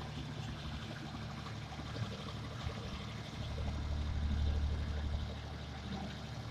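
Massey Ferguson 3080 tractor's diesel engine running steadily, with its mounted flail hedge cutter working over a rushing noise. The drone swells louder for a couple of seconds past the middle, then eases again.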